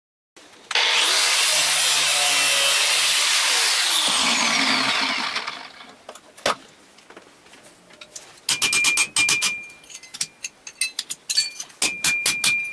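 A power tool, such as an angle grinder, cutting steel for about five seconds, then spinning down with a falling whine. After a pause, a run of sharp metal-on-metal taps and clinks with a ringing tone as the sheet-steel canister is worked off the welded billet.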